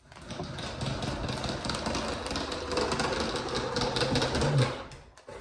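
Toddler's battery-powered remote-control toy car driving across the floor: a steady whirring rattle that starts at once and stops about five seconds in.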